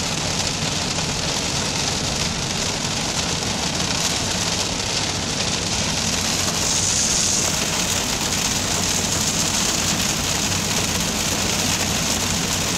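Heavy rain pelting the car's windshield and roof, heard from inside the moving car, a steady hiss that swells briefly about halfway, over the low drone of the car and its tyres on the wet road.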